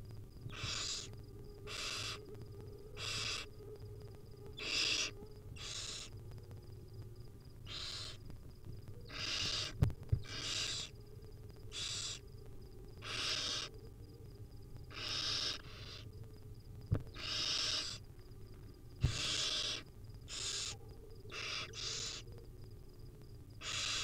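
Barn owl nestlings giving their food-begging calls, harsh hissing screeches repeated about once a second, the sound of hungry chicks being fed. A few sharp knocks stand out, two close together about ten seconds in and more near the end.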